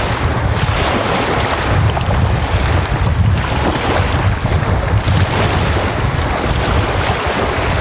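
Small wind-driven waves washing and breaking onto a sandy lake shore, swelling and easing every second or two, with gusty wind rumbling on the microphone.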